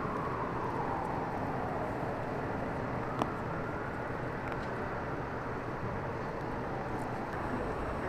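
Steady city street ambience with a low traffic rumble. A faint tone glides down and later back up, and there is a single sharp click about three seconds in.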